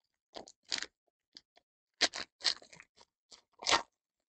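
Foil wrapper of a 2022 Panini Absolute football card pack crinkling and tearing as it is ripped open by hand, in a string of short crackly bursts, the loudest near the end.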